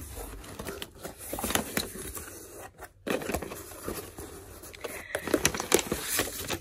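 Cardboard shipping box being opened by hand: packing tape pulled off, cardboard flaps scraping open, then a sheet of paper rustling, with a louder flurry of crinkling clicks near the end.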